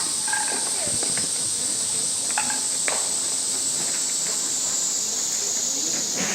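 Steady, high-pitched chorus of insects, with a few faint sharp knocks in the first three seconds.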